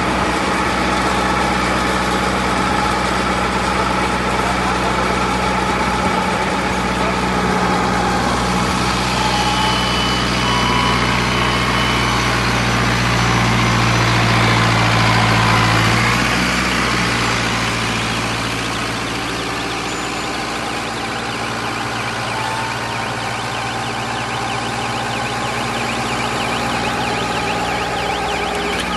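Straw and husk baler machine running with a steady, engine-like drone. The drone grows louder partway through, then eases back down about 17 seconds in and carries on steadily.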